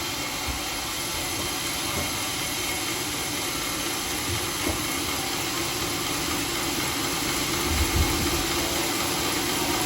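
Homemade sawmill running, a steady mechanical noise with a constant hum, and a few low thumps about four and eight seconds in.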